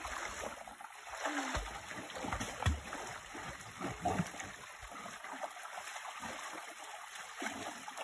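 Dogs splashing as they swim and wade through a shallow creek, over the trickle of the running water, with a few louder irregular splashes.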